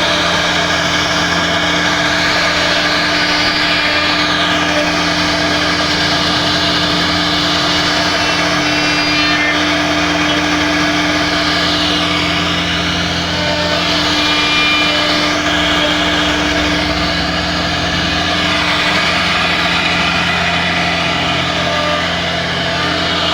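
CNC router running steadily, its spindle motor humming under a dense cutting noise that swells and eases slowly as the bit works through the wood.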